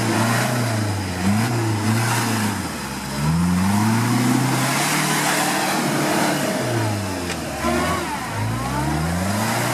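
Toyota Land Cruiser engine revving hard and falling back over and over, its pitch rising and dropping in about five swells. The engine is working under load as the 4x4 claws its way up a muddy rut.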